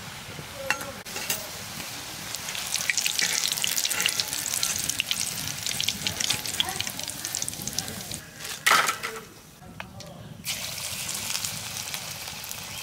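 Battered radish-flower pakoras deep-frying in hot oil in a karahi, the oil sizzling with a dense crackle. About nine seconds in comes a single sharp knock of the wire skimmer against the pan, and after a brief lull the oil sizzles on.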